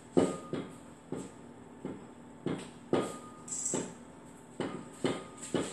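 Quick, heavy breaths, one every half second to second, from a woman working through a set of barbell hip thrusts. A light metallic clink rings out twice, after the first breath and about three seconds in.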